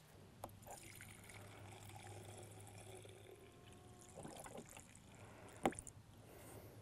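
Diesel fuel trickling in a thin stream from a jug spout into a new spin-on fuel filter, pre-filling it before it is fitted; faint, with one sharp click about five and a half seconds in.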